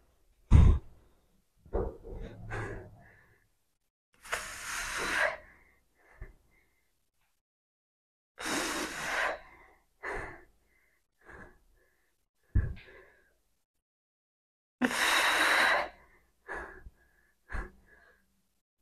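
A woman breathing hard while doing weighted split squats: three long, forceful exhales several seconds apart, with shorter breaths between them. Two short, soft thumps come near the start and about two-thirds of the way through.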